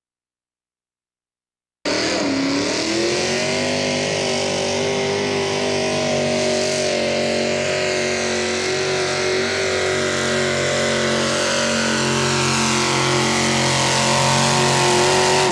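After about two seconds of silence, a mini modified pulling tractor's engine cuts in at full throttle, pulling the weight-transfer sled; its revs dip briefly, then hold high and steady, getting slightly louder toward the end before cutting off suddenly.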